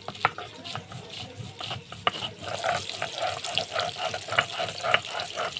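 Cumin, ginger and garlic being ground by hand into a paste on a grinding stone, in rhythmic strokes about three a second after some irregular knocks, over the steady sizzle of fish frying in oil.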